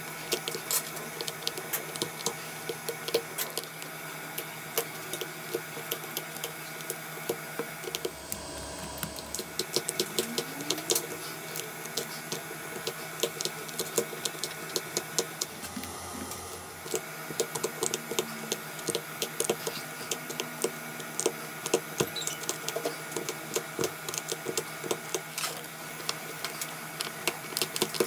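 Metal tools scraping and chipping at the broken back glass of an iPhone 8 Plus: a run of irregular small clicks and scrapes over a steady hum.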